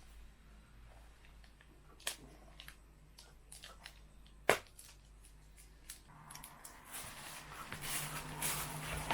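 Packaging being handled during a keyboard unboxing: scattered light clicks and taps, with a sharper click about two seconds in and the loudest one about four and a half seconds in, then rustling that grows from about six seconds in.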